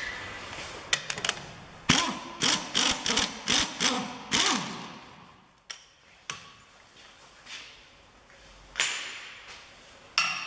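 Metal clicks and knocks as the lower strut bolt is worked out of the hub carrier clamp: a quick irregular series of sharp, slightly ringing knocks through the first half, then a few single clicks.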